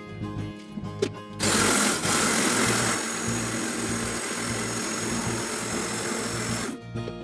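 Electric countertop blender grinding dry slime: the motor starts about a second and a half in, runs loudest for its first second, then steadily for about four more, and stops near the end. Background music plays under it.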